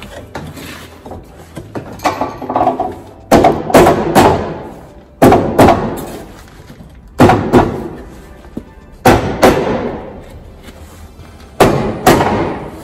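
Loud blows on the sheet steel of a pickup's lower cab corner and rocker panel: about seven sudden bangs at irregular intervals a second or two apart, each dying away in the reverberant shop.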